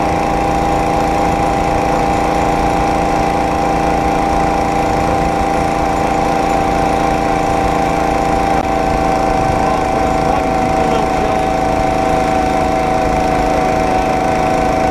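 Small engine of a homemade motorized rail cart running steadily at travelling speed, with a steady droning pitch that drops slightly about two-thirds of the way through.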